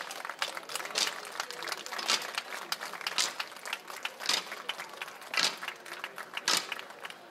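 Crowd murmur and scattered clicks along a procession route, with a sharp strike that repeats steadily about once a second.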